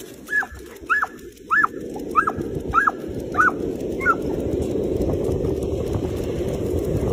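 A dog yelping and whining eagerly in short high cries, about one every half second, seven or so that fade out after about four seconds. Underneath, a low rushing noise of running and wind on the microphone builds up and holds.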